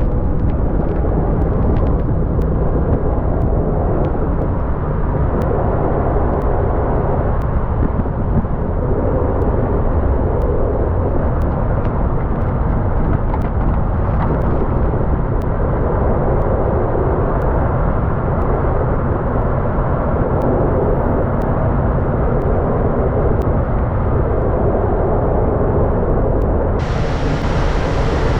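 Snow plow truck driving, with a steady low engine and road rumble. Near the end the sound changes suddenly and a bright hiss joins in.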